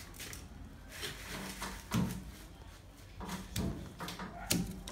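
A few sharp knocks and clunks of handling as a jammed ratchet strap is worked loose. The loudest comes about two seconds in, with more around three and a half seconds in and near the end.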